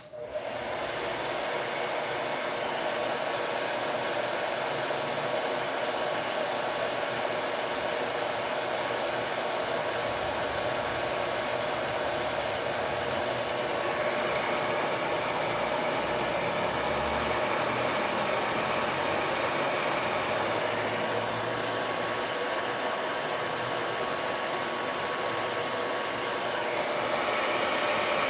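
Handheld hair dryer switching on and running steadily, blowing over a freshly painted MDF plaque to dry the paint; it gets slightly louder near the end.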